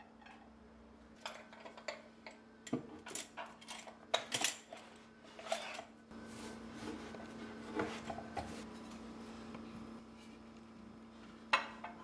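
Ceramic dishes and a ceramic crock full of metal cutlery being set down and arranged on a cupboard shelf: a string of clinks and clatters, the busiest about four seconds in, a few more around eight seconds, and a sharp knock near the end, over a faint steady hum.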